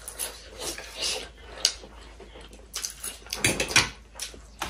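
People eating noodles: chewing and slurping, with a few sharp clicks of a fork and chopsticks against plates, most of them in the last second and a half.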